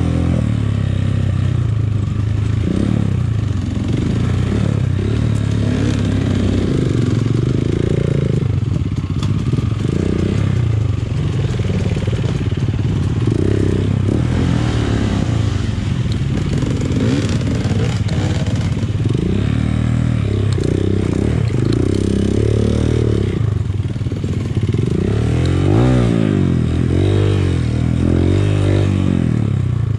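Dirt bike engine revving up and down as it is ridden off-road, its pitch rising and falling again and again.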